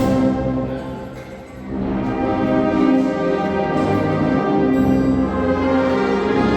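A Sierra Mixe banda filarmónica, a brass and wind band, playing held chords. The sound drops back about a second in, then swells up again.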